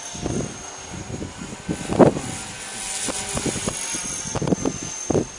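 Blade 300X electric RC helicopter in flight, its rotors and motor giving a steady high whine, with wind buffeting the microphone in irregular gusts.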